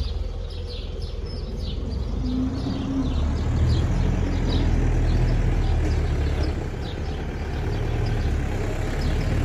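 A steady low engine rumble, louder through the middle, with small birds chirping in quick repeated notes over it.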